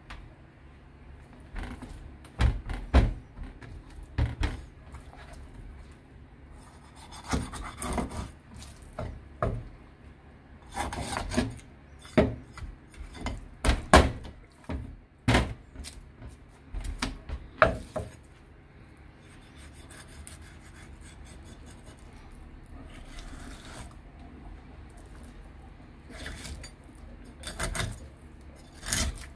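Kitchen knife scraping and knocking against a wooden cutting board as a fish is cut up: irregular taps and rasping strokes, quieter for a stretch in the second half before a few more knocks near the end.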